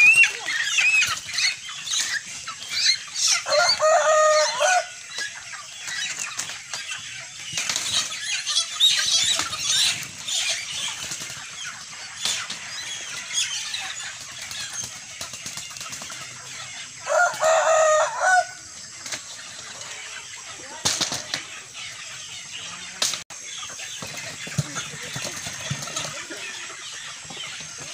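A crowd of broiler chickens squawking and flapping their wings as they are tipped from baskets into plastic crates, with two louder, drawn-out cries about four seconds in and again around seventeen seconds, and a few sharp knocks.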